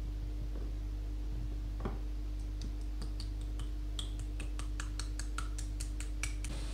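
Rapid light clicking, about five small clicks a second for the second half, as fingers handle soaked wheat seeds at small beakers, over a steady low electrical hum.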